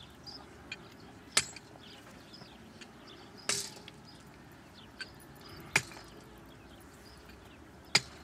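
Hammer blows on broken reinforced concrete, breaking it away from the steel rebar: four sharp single strikes about two seconds apart. The second blow is followed by a short crumbling rattle.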